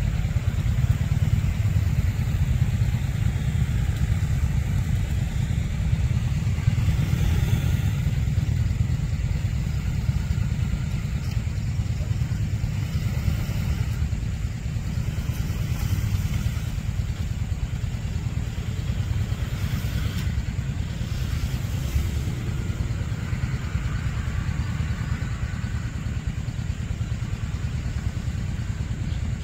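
Steady low rumble of road traffic and a slowly approaching diesel railcar, with no distinct events.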